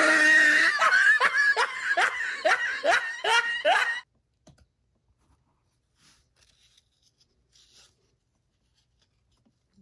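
A burst of laughter: a quick run of about a dozen ha-ha pulses for about four seconds, which then stops suddenly, leaving near silence.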